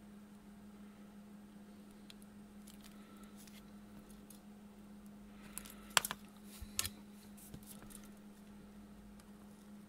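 Small clicks and taps of hands working a perfboard, wire and side cutters on a workbench, with a pair of sharp clicks about six seconds in and another about a second later. A faint steady low hum sits underneath.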